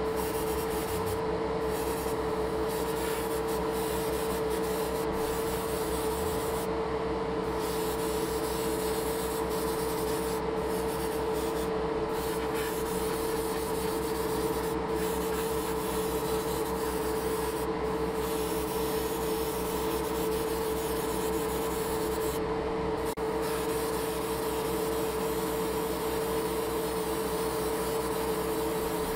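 Airbrush painting setup running: a small motor's steady hum under an even airy hiss.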